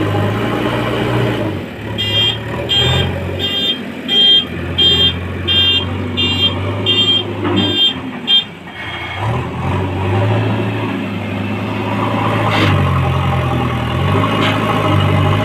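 JCB 3DX backhoe loader's diesel engine running, with a reversing alarm beeping about ten times, roughly one and a half beeps a second, before stopping. After that the engine speed rises and falls as the machine works.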